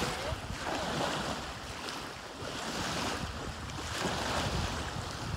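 Small waves breaking and washing up on the shore, the sound swelling and fading every second or two, with wind buffeting the microphone.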